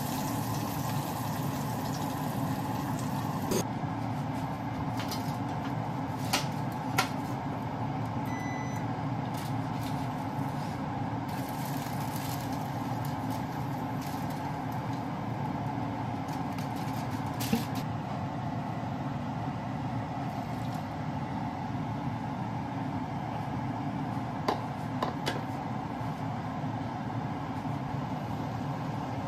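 Oil, garlic and then corn kernels sizzling in a frying pan over a steady low rush, with a few sharp clicks of a utensil or pan against the pan.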